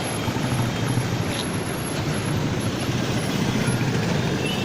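Steady low rumble of road traffic, motor vehicle engines running nearby.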